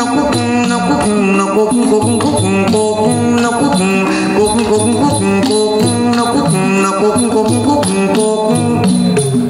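Traditional Thai instrumental music: a melody of held notes stepping up and down over a steady, quick beat.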